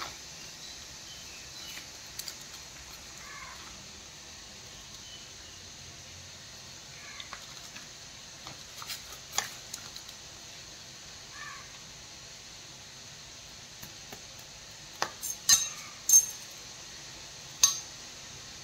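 Kitchen utensils clinking and tapping now and then against pots and dishes over a steady background hiss, with a quick run of louder clinks near the end.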